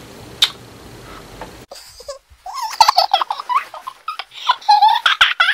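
A faint kiss smack about half a second in. Then, after a short silent cut, a woman laughing in quick, high-pitched giggles through the rest.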